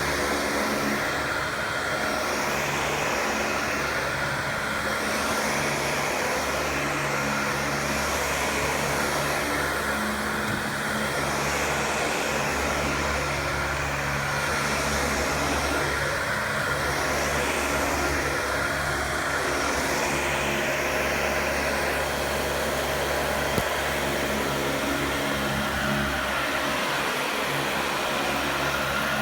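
Dyson DC40 upright vacuum cleaner running steadily, a constant motor drone whose higher hiss swells and fades about every two seconds, as with strokes back and forth.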